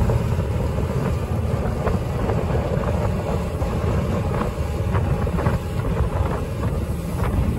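A fishing boat under way: its engine runs steadily, with wind buffeting the microphone.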